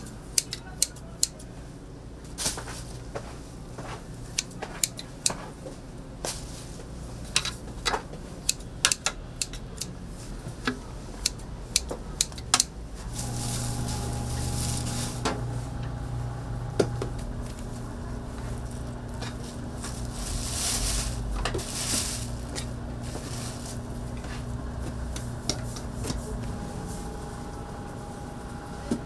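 Kitchen clatter of utensils and trays, with many sharp clicks and knocks in the first half. About halfway a steady machine hum sets in, and two brief hissing rushes come over it.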